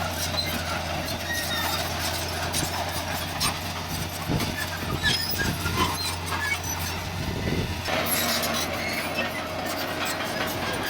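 Heavy diesel earthmoving machinery running steadily, with irregular metallic clanks and knocks throughout.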